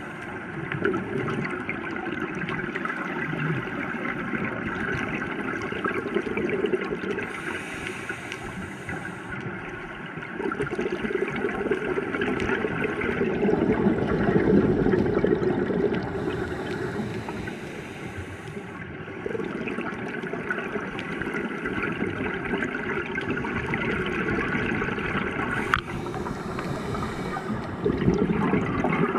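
Scuba regulator breathing heard underwater through a camera housing: a muffled, steady rushing with a gurgling surge of exhaust bubbles about every nine seconds.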